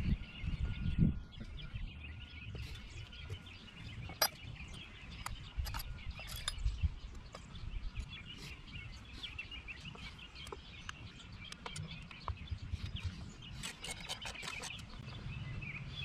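Birds chirping steadily in the background, with a few sharp metallic clicks and a quick run of clicks near the end from a wrench and ratchet being worked on the motorcycle's regulator mounting nut.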